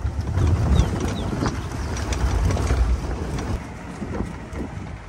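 Open-top safari jeep driving along a rough dirt track: engine and tyre rumble with wind buffeting the microphone, heaviest in the first three seconds and easing after.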